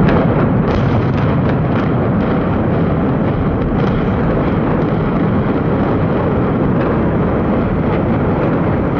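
Controlled implosion of a high-rise department store building: demolition charges go off in sequence as repeated sharp cracks over a loud, continuous rumble.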